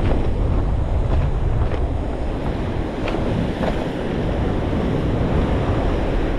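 Sea surf washing against a rocky shoreline, a steady rushing wash, with wind buffeting the microphone.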